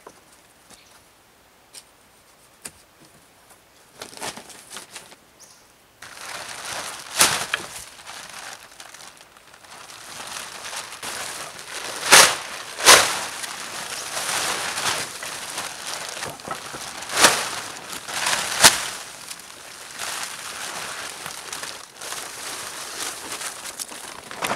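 Blue plastic tarp being dragged off a shelter roof, crinkling and flapping continuously from about six seconds in, with several loud sharp snaps as it is yanked.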